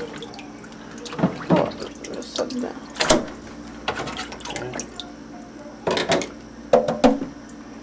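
Hands moving crabs and crab shells about in a sink full of water: irregular splashes and knocks, a few of them sharper, about a second in, around three seconds in, and twice near the end.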